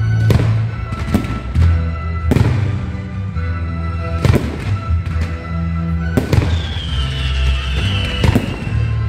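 Fireworks bursting overhead, a sharp bang every second or two, over music with a heavy bass line.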